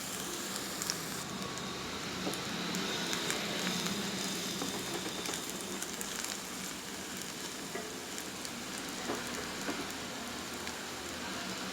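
Small onions frying in sesame oil in a pan, a steady crackling sizzle as they turn golden.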